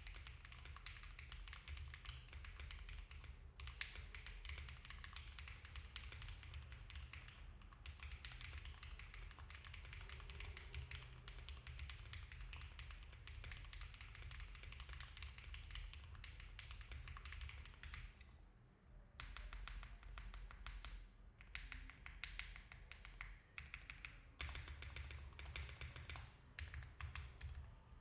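Typing on a Mode Envoy custom mechanical keyboard with diamond-polished Cherry MX Black linear switches, an FR4 plate, plate and case foam, and GMK keycaps. The keystrokes come in a dense, steady run, with a brief pause about two-thirds of the way through.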